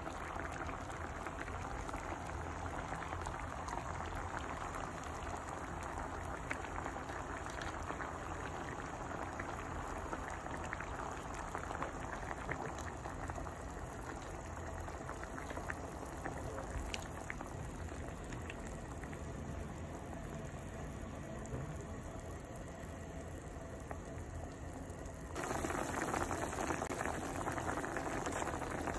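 Pot of pork spareribs boiling in water, bubbling and popping steadily; the bubbling becomes louder about 25 seconds in.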